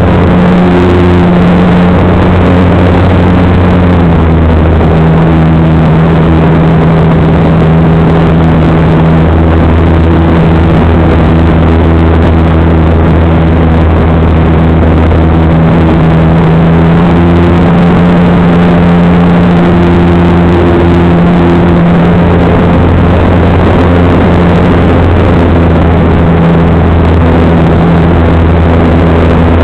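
Model airplane's motor and propeller droning steadily, heard from the onboard camera and mixed with rushing wind. Its pitch shifts a few times with throttle changes, about 4 seconds in and again around 17 and 20 seconds.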